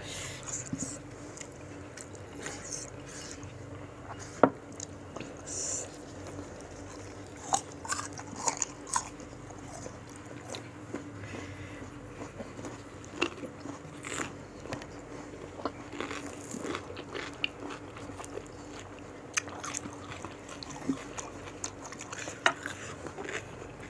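Close-up crunchy biting and chewing of crisp raw fruit pieces dipped in sambal, with sharp crunches at irregular moments.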